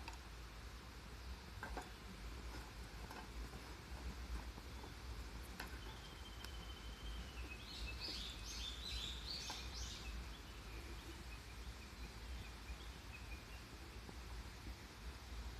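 A bird chirping in a short rapid series about halfway through, over faint steady outdoor background noise with a few light clicks.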